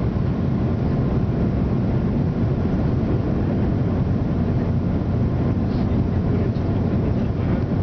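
Steady low rumble of a jet airliner's turbofan engines and airflow heard inside the cabin from a seat over the wing, during the descent on final approach.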